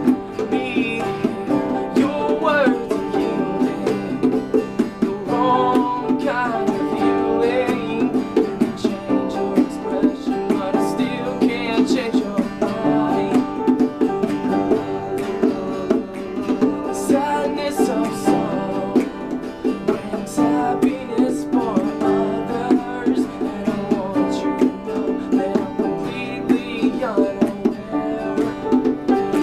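Live acoustic song: plucked and strummed acoustic string instruments playing steadily, with a voice singing over them at times.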